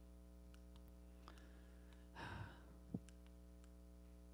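Near silence: room tone with a steady low hum, a soft sigh-like breath about two seconds in and a small tap just after.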